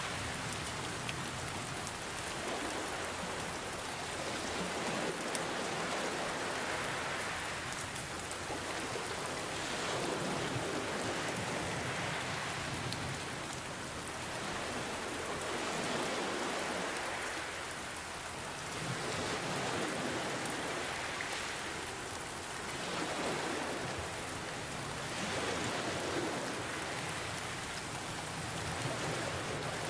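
Steady rain mixed with ocean waves washing in, the sound swelling and easing every few seconds.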